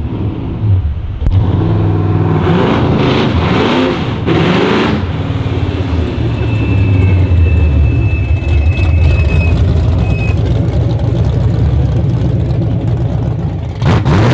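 First-generation Chevrolet Camaro's engine running through open headers: revved a few times, then a loud steady run as the car drives past.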